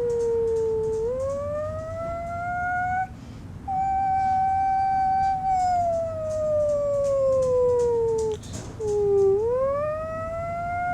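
Siren wailing in a siren test: one tone with overtones that rises and falls in pitch in long, slow sweeps. It breaks off briefly about three seconds in and again about eight and a half seconds in, then starts rising again.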